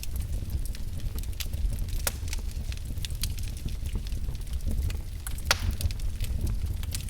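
Wood fire in a fireplace crackling: irregular sharp pops and snaps over a steady low rumble of the flames, with one louder snap about five and a half seconds in.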